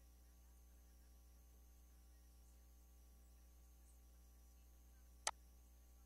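Faint steady electrical hum, with a single sharp mouse click about five seconds in.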